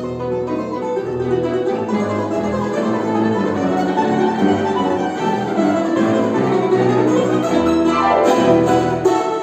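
A music-school ensemble playing a lively piece on plucked and bowed string instruments, with quick runs of notes and sweeping slides down and back up in pitch.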